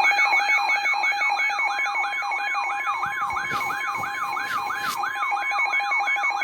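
Electronic siren-style emergency alert tone: a fast yelp of falling pitch sweeps, about three a second, over a steady tone, sounding the alert for a severe thunderstorm warning.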